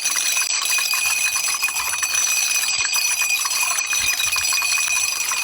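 Long run of dominoes toppling in a fast, unbroken clatter of small clicks, with a steady high ringing beneath it.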